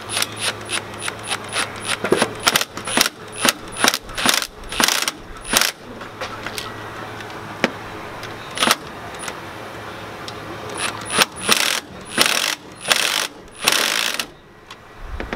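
Ratchet clicking in quick runs as it tightens the bolt on a car battery's positive terminal, with a few longer spells of rapid clicking near the end as the bolt is run down tight.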